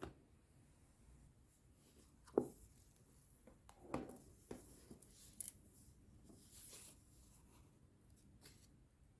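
Quiet handling sounds: a few soft knocks and taps, the loudest about two and a half seconds in, and a brief rustle about two-thirds of the way through.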